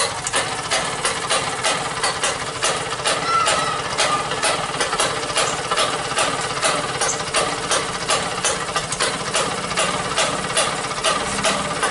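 Classic two-stroke Vespa scooter engine, run out of its frame on a stand, running steadily with a rapid, even pulse.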